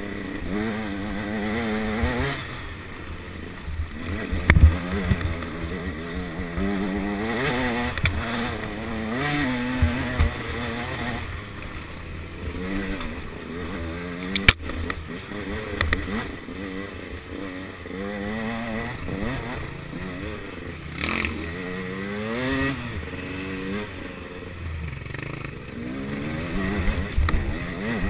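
Off-road enduro motorcycle engine revving up and down over and over as the throttle is opened and closed, with a few sharp knocks, the loudest about fourteen seconds in.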